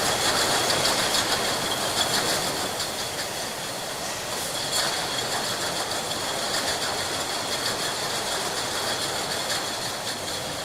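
Many glass bottles clinking and rattling together in a bottle factory line, a dense continuous clatter with a steady high-pitched machine whine underneath.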